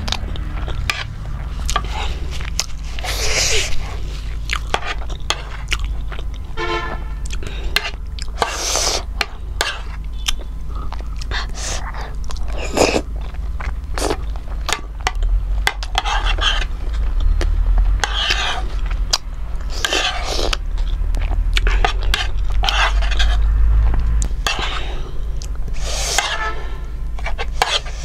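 A person chewing chicken momos close to the microphone, with wet mouth clicks and a series of sharp breaths drawn in through the mouth, as against chilli heat. A steady low hum runs underneath.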